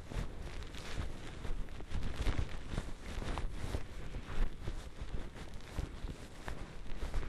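Skis running through deep powder snow, heard from a jostled camera carried by the skier: a rough rushing noise with many irregular knocks and bumps.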